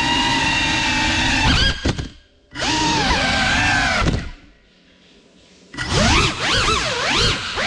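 Brushless motors and propellers of a GEPRC CineLog 35 cinewhoop drone whining, the pitch rising and falling with the throttle. The sound cuts out briefly about two seconds in and again for over a second near the middle, then swoops up and down rapidly near the end.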